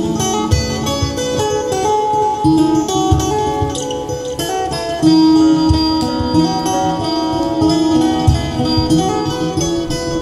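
Fingerpicked acoustic guitar played over looped guitar layers from a looper pedal: a steady stream of plucked melody notes above a low bass line.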